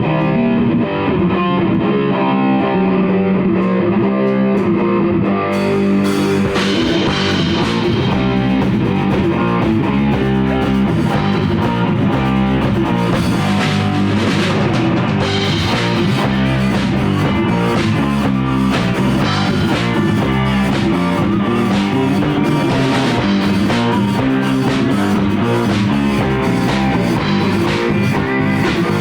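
Rock band playing live in a rehearsal studio: guitar and bass, with the drum kit and cymbals coming in about six seconds in and the full band playing on loudly from then on.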